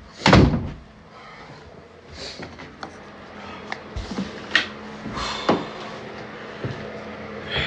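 A loud, sudden thump just after the start, then scattered light knocks, clicks and rustling.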